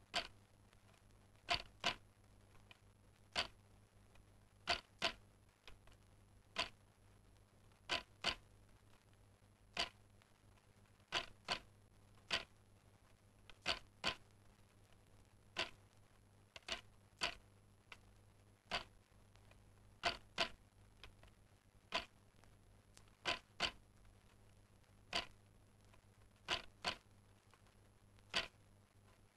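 Sharp mechanical clicks in a slow, even rhythm: a double click alternating with a single click, about one every two seconds, over a faint low steady hum.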